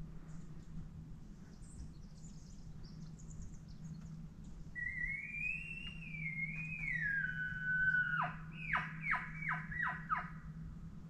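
Elk bugle: a long high whistle starting about five seconds in that rises, wavers and falls away, followed by a run of about five quick falling chuckles.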